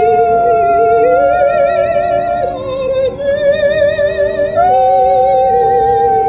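A dog howling along with opera music: two long held notes sound together, a lower one wavering with vibrato and a higher one held nearly steady, and both shift to new notes about halfway through.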